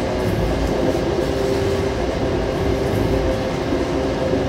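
Commuter rail passenger coach running along the line: a steady rumble with a low, even hum.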